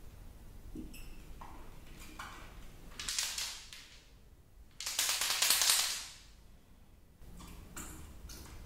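Chalk marker tip drawn across window glass in scratchy strokes: a shorter stroke about three seconds in and a longer, louder one about five seconds in, with brief light strokes around them.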